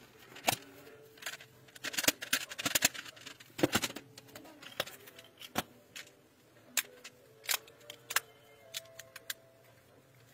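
Clear plastic magnetic building tiles clicking and clacking as they are handled and snapped together, in irregular sharp clicks with a quick flurry about two to four seconds in and single clicks spaced out after that.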